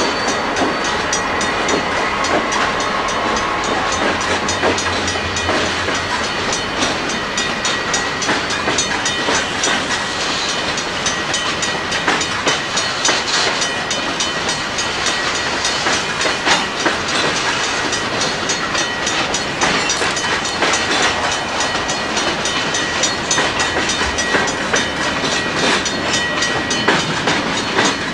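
Freight cars rolling past at track side: steady wheel clatter with many sharp clicks as the wheels cross rail joints and switches, and a thin high-pitched wheel squeal held through most of it.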